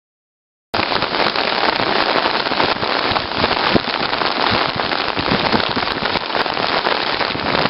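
Heavy monsoon rain and storm water, a loud, steady rushing hiss that starts abruptly about a second in.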